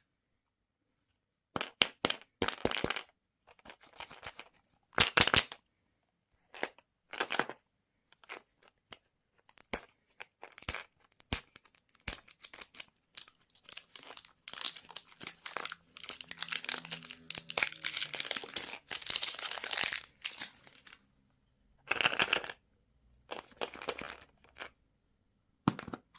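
Candy wrappers being crinkled and torn open in short, irregular bursts.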